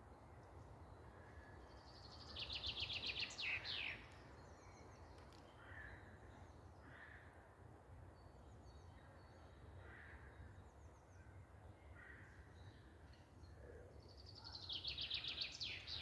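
Songbirds singing: two songs, each a rapid high trill falling in pitch and ending in a quick flourish, about two seconds in and again near the end, with short fainter calls between them. A low steady rumble runs underneath.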